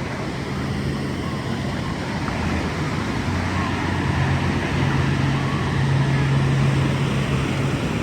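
Steady rush of water-park water with a murmur of distant voices and a low hum that grows stronger about halfway through.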